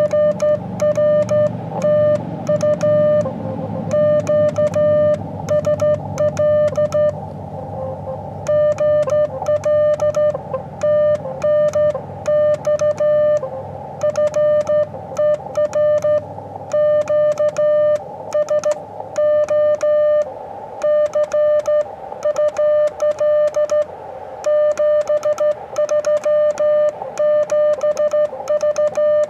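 Morse code (CW) sidetone from an Elecraft KX2 transceiver, sent by hand on a Morse key: one steady mid-pitched beep keyed on and off in dots and dashes, with short pauses between groups.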